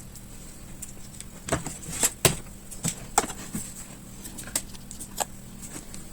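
Irregular light clicks and taps of plastic and small parts being handled inside an opened laptop while the battery cable's plug is pulled from the motherboard. The sharpest knock comes a little over two seconds in.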